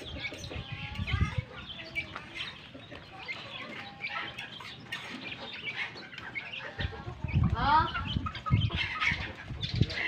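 A flock of native chickens, grown birds and young ones, clucking and calling in many short notes while feeding, with a louder run of calls about seven to eight seconds in.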